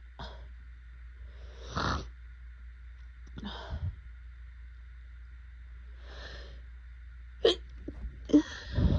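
A woman sniffing and sneezing in a run of short, breathy bursts a second or two apart, the loudest near the end, over a faint steady hum. These are the sneezes and sniffles of a pollen allergy attack.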